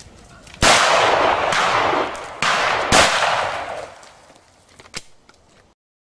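Four gunshots in quick succession, each trailing off over about a second, the last about three seconds in, then a faint click near the end.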